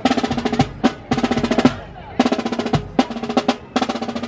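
Marching band playing as it passes: rapid snare drum strokes and rolls over held band notes, with a brief lull about two seconds in.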